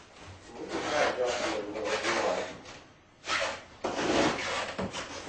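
Skateboard wheels rolling across a hardwood floor, in stretches with a short break about three seconds in.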